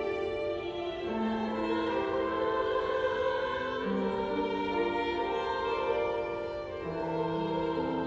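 A mixed SATB choir singing a slow anthem with piano and violin accompaniment, long held chords changing every second or two.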